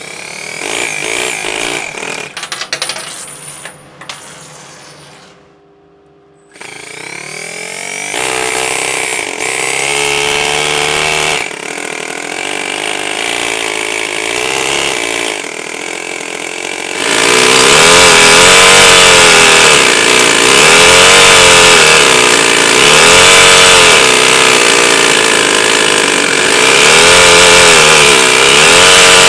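Miniature Toyan two-cylinder four-stroke model engine with a belt-driven centrifugal supercharger. After a few seconds of irregular mechanical clatter and a short lull, it runs from about six seconds in. From about seventeen seconds in it runs louder and is revved up and down repeatedly, about once every two to three seconds.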